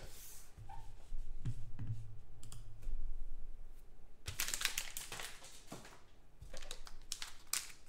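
Light clicking and tapping off to one side, with a dense run of clicks about halfway through.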